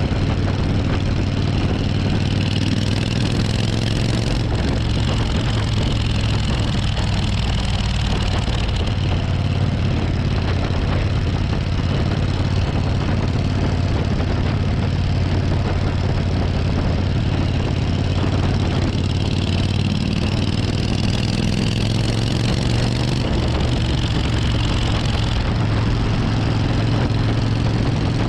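Suzuki VS1400 Intruder's V-twin engine running steadily at an even cruising speed, its low exhaust note under a constant rush of wind and road noise.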